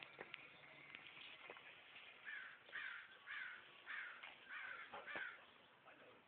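A crow cawing about six times in quick succession, harsh calls roughly half a second apart in the middle of the stretch. Faint clicks and rustling of dogs tussling close by.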